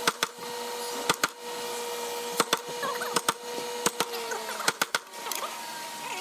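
Steel chisel being driven into hardwood to chop a mortise: sharp strikes, often in quick pairs, roughly once a second.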